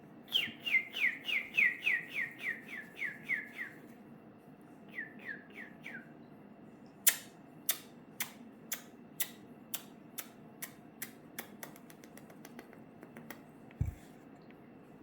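A quick series of about ten whistled chirps, each sweeping downward, at roughly three a second, then three more after a short pause. From about halfway in, a run of sharp, irregular clicks or taps follows, coming faster for a while.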